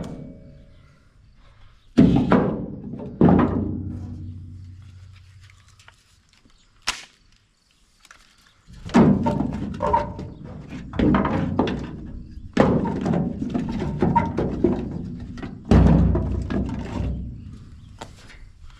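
A series of heavy thunks from wood being struck or broken, each followed by a low ringing decay, at irregular intervals with gaps of one to three seconds.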